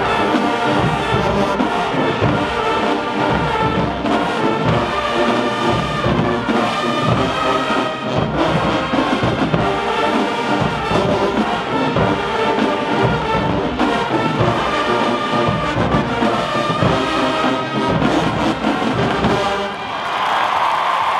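College marching band playing, led by brass with a steady drum beat. The music stops about 20 seconds in and the crowd cheers.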